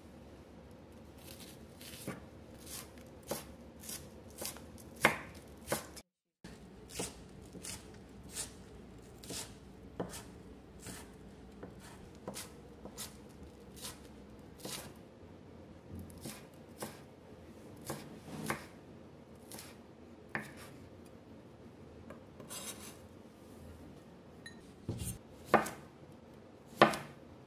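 Kitchen knife chopping on a cutting board in slow, uneven single strokes, about one or two a second, with a few harder knocks near the end.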